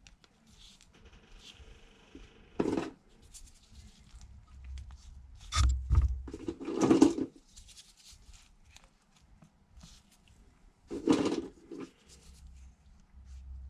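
Intermittent handling noises: a few separate knocks and clatters of tools and parts being handled on a work surface, with quiet between them.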